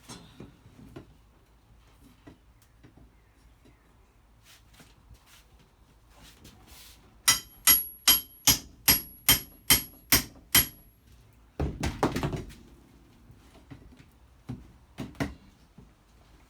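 A hammer striking about nine times in quick, even succession, roughly two and a half blows a second, each blow ringing, while camper cabinetry is knocked apart. About a second later comes a short clattering crash, followed by a few lighter knocks.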